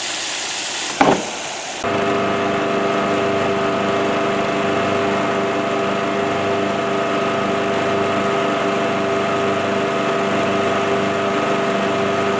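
Craftsman LT2000 riding mower running at a steady speed with its blades engaged, washing its deck: hose water fed through the washout port sprays out of the discharge chute. For about the first two seconds a hiss of spray is the loudest sound, then the engine's steady hum, constant in pitch, takes over.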